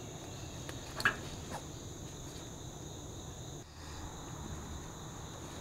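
Steady high trilling of crickets, with a couple of faint clicks from wiring being handled about a second in.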